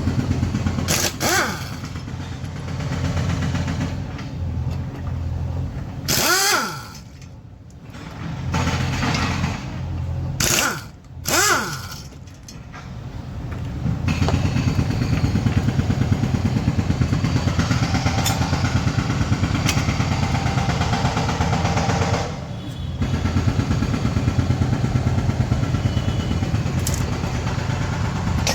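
An engine running with an even, rapid pulse, with a few brief swings in pitch and drops in level in the first half.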